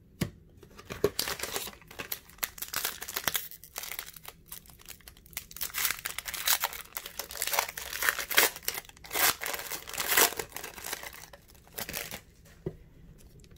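Foil wrapper of an Upper Deck CHL hockey card pack crinkling and tearing as it is handled and ripped open. The noise is a run of irregular crackles, on and off, loudest in the middle, dying away about a second before the end.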